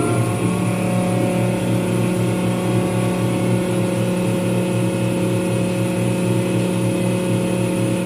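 Ship's air-conditioning plant blower (the aircon fan) finishing its run-up just after being switched on. Its pitch settles about half a second in, and it then runs with a steady hum and whine.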